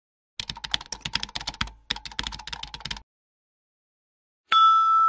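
Keyboard-typing sound effect: rapid key clicks for about two and a half seconds, with a short break midway. About four and a half seconds in, a sudden chime-like tone starts and rings on steadily.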